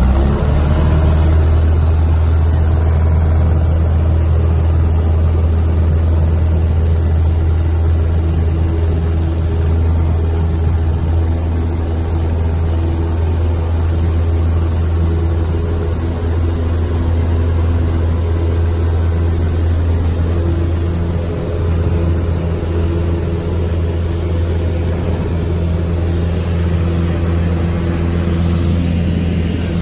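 Piper Warrior's four-cylinder Lycoming engine and propeller running steadily at full throttle for takeoff, heard inside the cabin.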